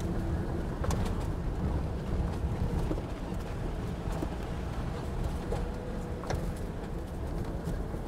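Off-road vehicle crawling over a rough, rocky dirt trail: a steady low engine and tyre rumble with scattered clicks and knocks.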